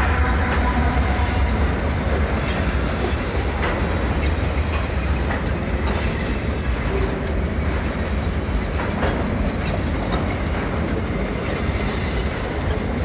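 Covered hopper wagons of a long freight train rolling past close by: a steady rumble of wheels on rail with irregular clicks and clacks over the rail joints.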